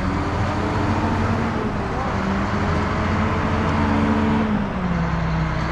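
Heavy road construction machine's diesel engine running under changing load: a steady low rumble whose engine note shifts up and down, dropping lower near the end.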